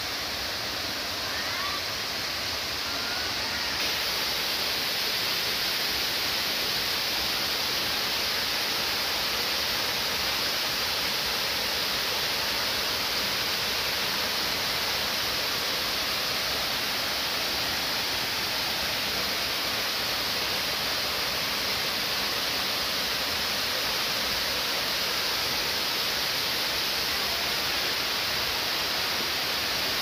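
Waterfall: a steady rush of falling water, growing louder and fuller about four seconds in.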